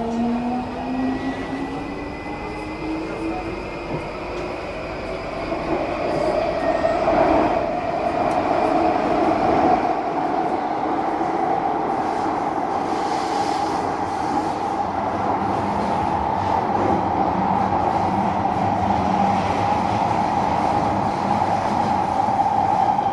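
Singapore MRT train heard from inside the carriage, pulling away. Its motor whine rises in pitch over the first few seconds as it gathers speed, then it runs on at speed with a steady rumble and a steady tone.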